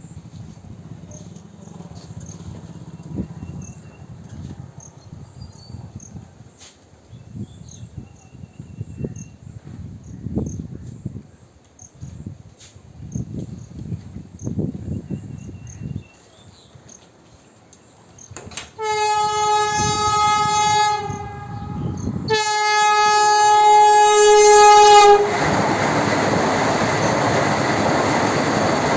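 Low rumbling swells come and go, then a Vande Bharat Express train sounds its horn in two long steady blasts, the second longer. The horn gives way to the loud, steady rush of the train running close by.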